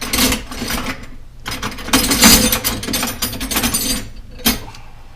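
A ratchet wrench clicking rapidly while bolts are taken off, in two runs of about a second and two and a half seconds, followed by a single sharp knock.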